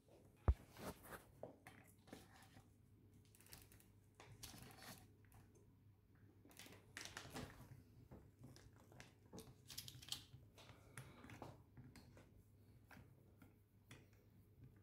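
Faint crinkling of plastic wrapping and scattered small knocks and clicks of handling, with one sharp knock about half a second in.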